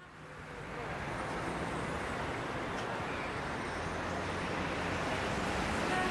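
Steady city traffic noise fading in over the first second, an even wash of distant road noise with a low hum underneath.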